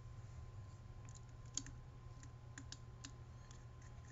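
Faint, scattered clicks and taps of small screws and parts being handled against a plastic night vision binocular housing, with the sharpest click about one and a half seconds in, over a steady low hum.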